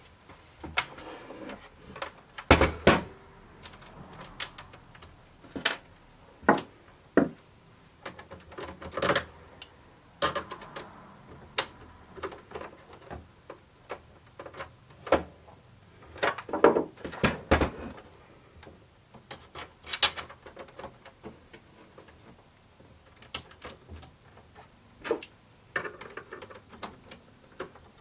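Small metal nuts and screws clicking, tapping and scraping against 3D-printed plastic parts as they are handled and fitted, in irregular sharp clicks with a few busier clusters of rattling.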